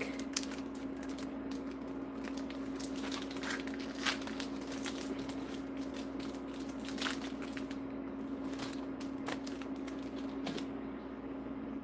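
Crinkly plastic wrapper of a Reese's peanut butter cup package being torn open and peeled back by hand, a run of irregular sharp crackles that stops about ten and a half seconds in. A steady low hum runs underneath.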